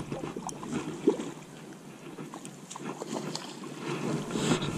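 Close handling noise from the angler holding a fishing rod: irregular rustling of the jacket sleeves against the microphone with scattered small clicks and knocks, the sharpest about a second in.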